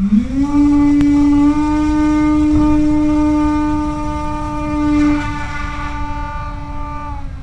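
Electric motor and propeller of a Skyhunter FPV plane at full throttle for takeoff: a steady buzzing drone that rises in pitch as it spools up at the start, then holds. Near the end the pitch drops slightly as the throttle is eased back.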